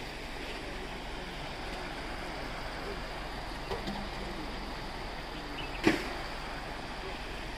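Steady rushing background noise, with a single sharp click a little before six seconds in and two faint knocks a couple of seconds earlier.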